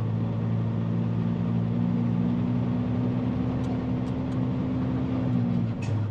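Diesel engine of a heavily loaded dump truck running steadily under way. Its drone edges up slightly in pitch, then changes abruptly near the end. A few light clicks come in the second half.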